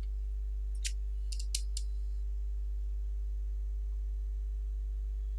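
A few sharp computer mouse clicks in the first two seconds, one and then a quick cluster of three or four, over a steady low electrical hum.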